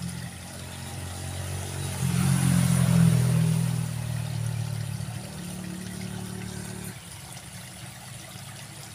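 An engine running, most likely a motor vehicle going by: it gets suddenly louder about two seconds in, peaks about a second later, then fades, dropping off again near the end.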